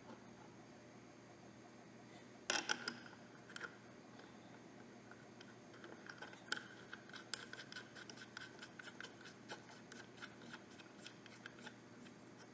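Faint metallic clinks about two and a half seconds in, then a run of quick, irregular ticks over several seconds: a ratchet with an Allen bit driving the flush caliper-bracket bolts down.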